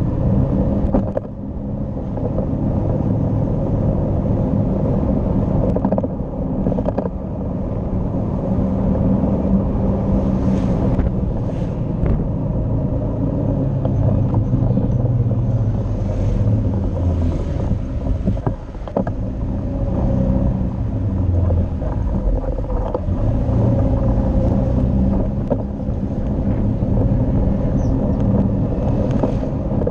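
Motorcycle engine running while riding, its pitch rising and falling as the speed changes, with wind rumbling on the microphone.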